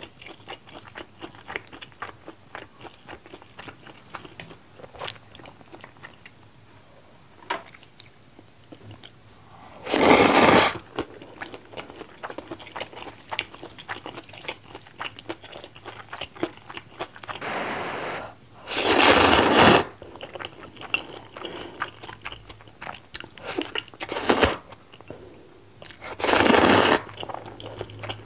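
Mouth sounds of eating: steady crunching and chewing clicks as a pan-fried dumpling and noodles are eaten, broken by three loud slurps of jajang ramen noodles, about ten seconds in, near twenty seconds, and near the end.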